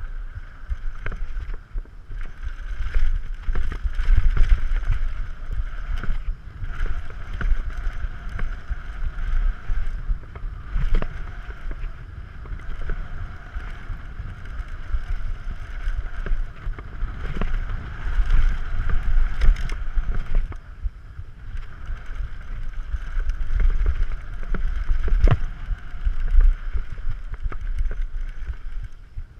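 Yeti SB6c carbon mountain bike ridden fast down a dry dirt jump trail: wind buffeting the camera microphone and tyres on packed dirt give a steady rumble, with repeated sharp knocks and rattles from the bike over bumps and landings and a steady high buzz underneath.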